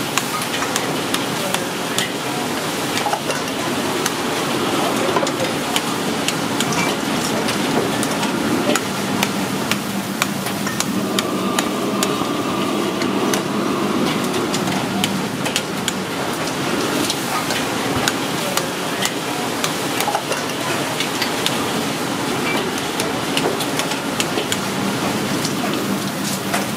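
Metal meat-tenderizer mallet repeatedly striking and cracking conch shells on a plastic-covered wooden chopping block: many sharp, irregular knocks and cracks of breaking shell, over a steady background hum.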